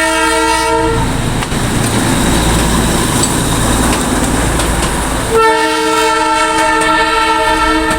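Darjeeling Himalayan Railway toy train sounding a long horn, which breaks off about a second in, giving way to the loud rumble of the train running. The horn sounds again, held, over the last few seconds.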